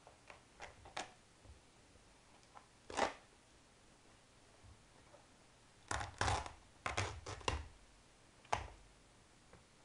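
A worn Adidas Neo sneaker being wrenched and torn apart by hand: short, sharp snapping and ripping noises of the shoe's material. There is a loud one about three seconds in, a quick run of them around six to seven seconds, and one more near the end.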